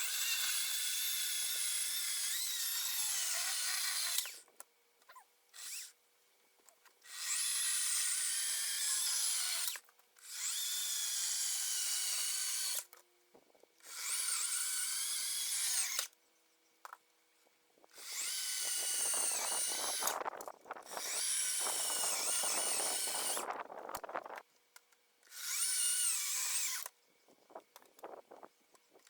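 GreenWorks 40-volt cordless electric chainsaw cutting firewood in repeated bursts of one to four seconds, with short pauses between them. Its high motor whine dips in pitch as the chain bites, most heavily in two cuts near the middle.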